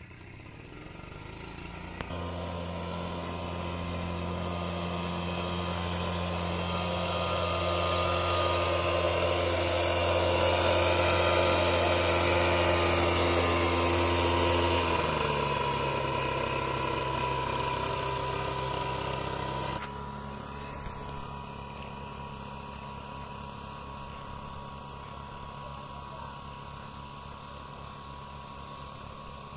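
Small two-stroke engine of a backpack power duster running steadily at high speed with the rush of its blower, blowing sulphur dust over chilli plants. It grows louder as it comes close, its note drops slightly about halfway through, and about two-thirds in it turns suddenly quieter and more distant.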